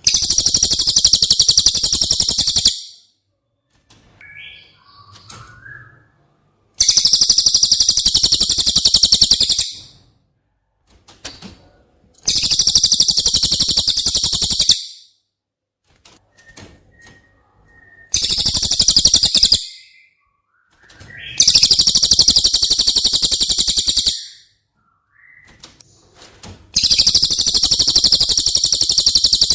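Cililin (pygmy tit) song from a bird-training master recording: six very high, rapid trills of about two to three seconds each, repeated with pauses of a few seconds, and faint short chirps in between.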